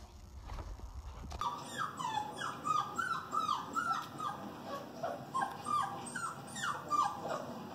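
Dog whining: a quick run of short, high, falling whimpers, about three a second, starting about a second and a half in.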